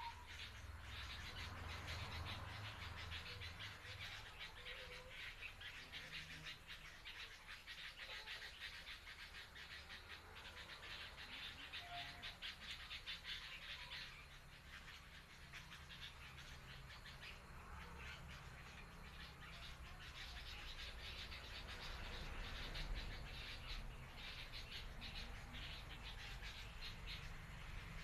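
Common bulbuls calling faintly with short whistled notes, over a dense, steady, rapid ticking chorus and a low rumble.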